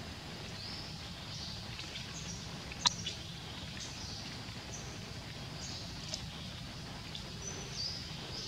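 Outdoor ambience of small birds giving short, high chirps again and again over a steady low rumble, with one sharp click about three seconds in.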